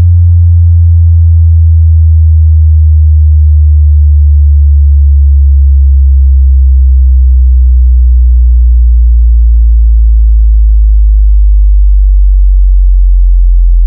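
Bass test tone: a single very loud, deep pure tone sliding slowly down in pitch, the kind of sweep used to sound-check a speaker's bass. Faint overtones above it die away about three seconds in.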